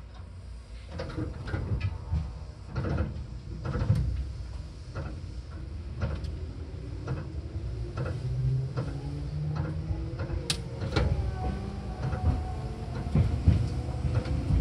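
Seibu 4000 series electric train pulling away, heard inside the car: rumble with scattered clunks and knocks from the equipment and running gear as it starts to move. About halfway in, the traction motors' whine sets in and rises steadily in pitch as the train gathers speed.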